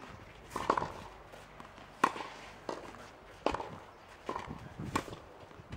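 Tennis balls struck with a racket: four sharp hits about a second and a half apart, with quieter knocks and shoe scuffs on the clay court between them.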